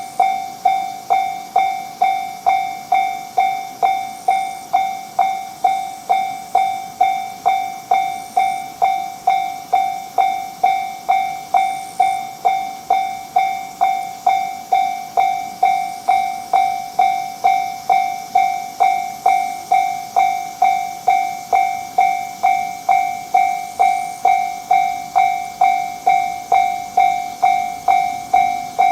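Japanese level-crossing warning bell ringing its 'kan-kan' in an even beat of about two strikes a second. Each strike rings and fades before the next, the signal that a train is approaching the crossing.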